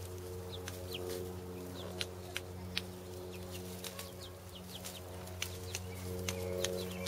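Chickens clucking, with short high chirps and scattered sharp clicks over a steady low hum.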